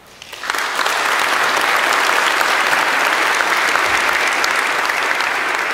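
Audience applauding, starting suddenly about half a second in and holding steady.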